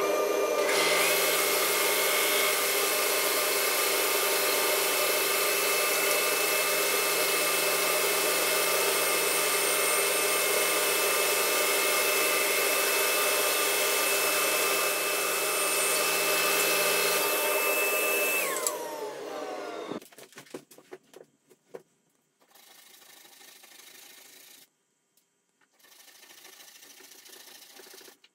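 Band saw and its dust extractor running, a steady loud whir with a high whine. About 18 seconds in they are switched off and spin down, the whine falling in pitch. Near the end come two soft stretches of rubbing, like hand sanding on wood.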